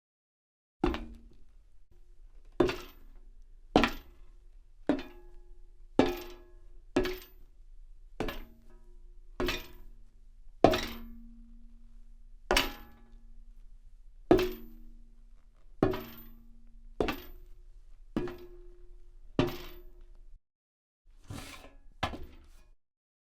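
Footsteps on a metal grate at a slow, steady walking pace, about one step a second, each footfall a sharp clank that leaves a short low metallic ring.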